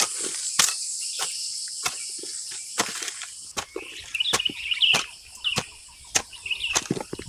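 A steady high-pitched chorus of crickets with regular sharp knocks, a little under two a second. The insect chorus fades after about three seconds, and short bird chirps come in.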